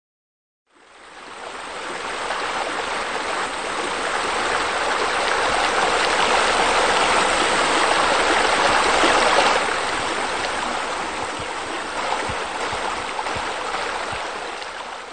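Steady rushing and splashing of a waterfall pouring into a pool, fading in about a second in, swelling toward the middle and fading out at the end.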